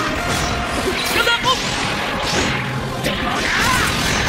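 Anime battle sound effects: crashes, impacts and whooshes of fighting robots and explosions, over background music.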